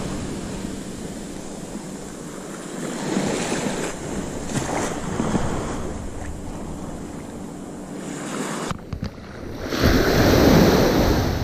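Small ocean waves breaking and washing up the shallows, with wind on the microphone. About ten seconds in, a wave breaks right at the camera, the loudest sound.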